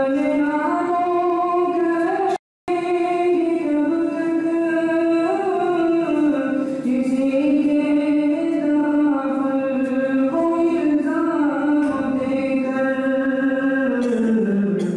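A young man's voice chanting an Urdu nazam, a devotional poem, unaccompanied: long held notes that step up and down in a slow melody. The sound cuts out completely for a split second about two and a half seconds in.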